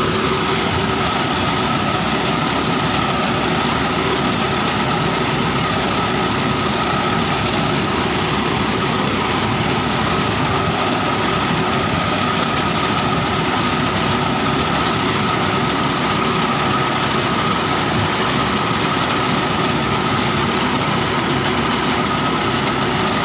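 Small tractor's diesel engine running steadily while its front-mounted reaper cuts pearl millet, with a steady high whine over the engine noise.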